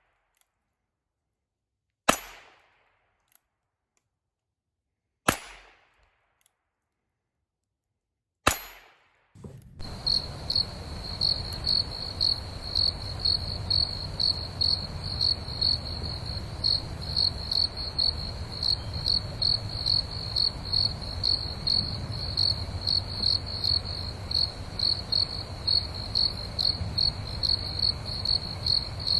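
Three single gunshots about three seconds apart, each with a short ringing tail. Then, from about a third of the way in, a steady high chirping pulses about twice a second over a low background rumble.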